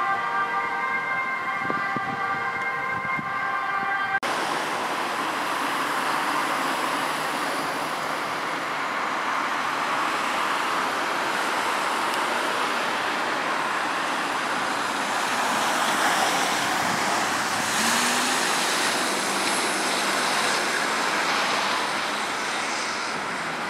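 An ambulance siren sounding in steady held tones. About four seconds in it cuts abruptly to continuous road traffic noise, with engine and tyre noise as an ambulance drives past.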